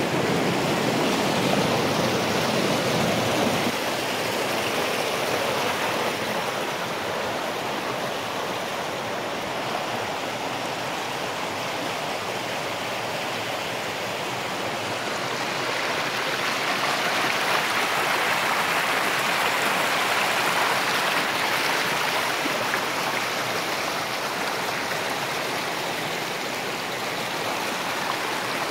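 Shallow river rushing over and between smooth boulders and rock ledges in a steady wash of water. It swells a little in the first few seconds and again past the middle.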